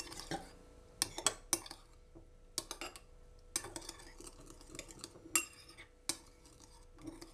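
Metal spoon stirring gelatin and water in a ceramic bowl, clinking against the sides in irregular clusters of taps.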